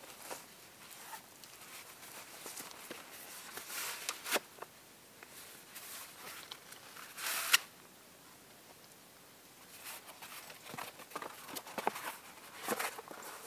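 Scattered rustling with small clicks and knocks, from someone moving about and handling gear. A louder rustle comes about seven seconds in, and a cluster of quick ticks near the end.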